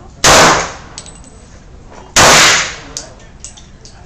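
.40-calibre pistol fired twice, about two seconds apart, each shot echoing briefly under the covered firing line; a third shot begins at the very end.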